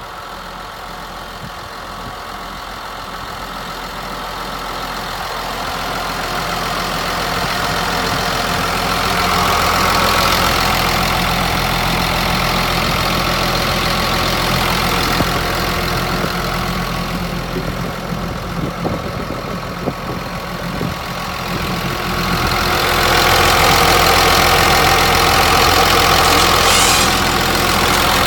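Caterpillar D5N crawler dozer's diesel engine running steadily. It grows louder over the first ten seconds, eases off a little past the middle, then gets louder again near the end.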